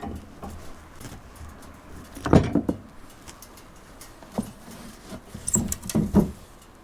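A few scattered knocks and clunks of hands-on work, the loudest a short cluster about two and a half seconds in, with more around four and a half and six seconds.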